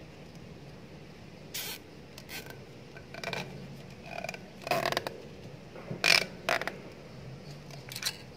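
A plastic cable tie ratcheting in a series of short zips as gloved hands pull it tight around a gate motor cable, with rubbing of the gloves on the cable in between. The loudest zip comes about six seconds in.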